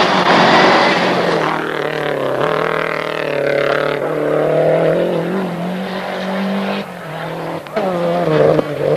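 Lancia Delta rally car passing close at full speed on a gravel road, a loud rush of engine and flung gravel in the first second. Its engine note then stays high, stepping up and down in pitch through gear changes as it carries on down the stage.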